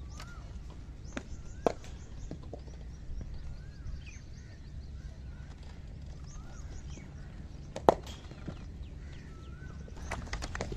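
Small birds chirping and whistling over a steady low outdoor rumble, broken by a few sharp knocks, the loudest about eight seconds in, and a quick run of clicks near the end.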